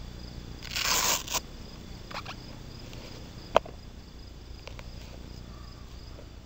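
Hook-and-loop (velcro) straps on canvas sneakers ripped open about a second in, followed by a few light knocks and one sharp tap as the shoes come off onto asphalt. A steady insect chirring runs underneath.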